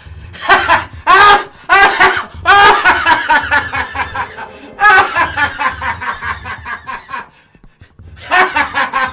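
Dramatised villain's laugh: loud cackling in repeated bursts, each sliding down in pitch, breaking off briefly about seven seconds in and then starting again.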